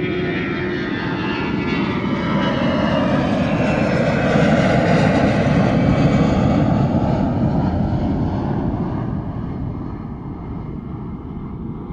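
A jet airliner passing close by: the engine noise swells, peaks, and then fades, with the engine whine gliding down in pitch as it goes past.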